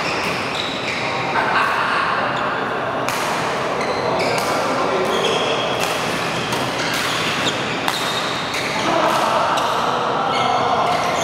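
Badminton rally: sharp cracks of rackets hitting the shuttlecock, with short squeaks of court shoes on the mat, over background voices in the hall.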